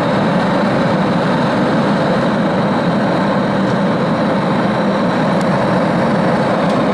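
Boeing 747-400 passenger cabin noise in flight: a steady, even roar of engines and airflow, with a faint high whine over it.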